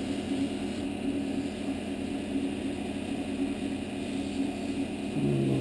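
Small wood lathe running steadily with a constant motor hum.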